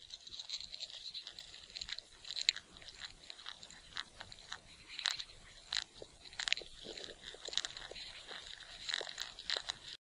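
Faint, irregular crackly clicks and small crunches, scattered unevenly with some ticks louder than others, like a small creature chewing close to the microphone.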